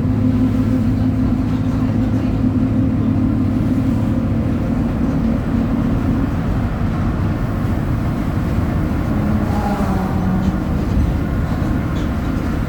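Mercedes-Benz OF 1722M city bus under way, its engine held at high revs and the differential growling. A steady engine drone eases after about three seconds, and a short rising whine comes near ten seconds in.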